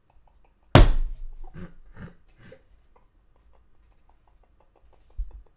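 A man's stifled laughter behind his hand: a sudden loud burst of breath about a second in, then a few fainter bursts that die away. Faint, quick, even ticking follows in the second half.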